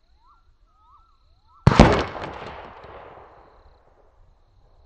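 A single shot from a Western Big Bores Bushbuck 45 big bore PCP air rifle, heard from the target end at 50 yards: one sharp report about a second and a half in, echoing and dying away over about two seconds. Birds chirp with short rising-and-falling calls just before it.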